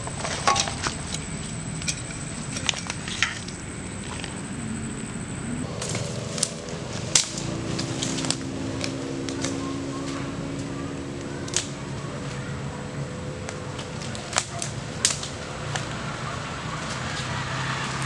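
Footsteps and rustling in dry leaf litter, with scattered crackles and snaps of twigs and leaves as someone moves about the forest floor on foot.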